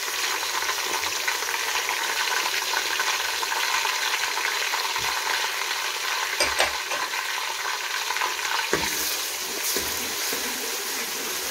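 Ginger-garlic paste and golden-fried onions sizzling steadily in hot oil, stirred in the pan, with a few short knocks of the stirring utensil against the pan.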